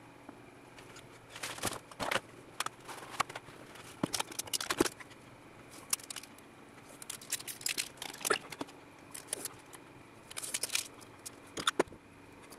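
Irregular small clicks, taps and short scratchy tearing sounds of adhesive tape being pulled and torn from a desk tape dispenser, and of guide strips and a circuit board being handled and set down on a countertop.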